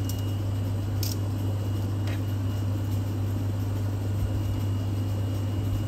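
Steady low hum of commercial kitchen equipment, unchanging throughout. Two faint light clicks, about one and two seconds in, come from metal serving tongs placing diced avocado.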